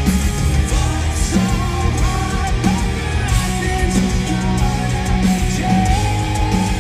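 Live rock band playing loudly: electric guitars over bass and drums.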